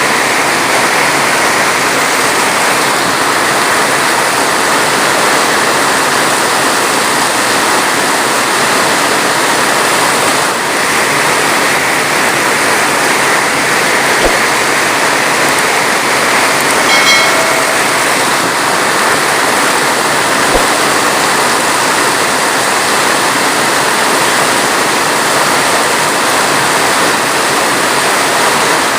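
Heavy rain falling steadily, a dense even hiss with no thunder. A brief pitched squeak sounds about two thirds of the way through.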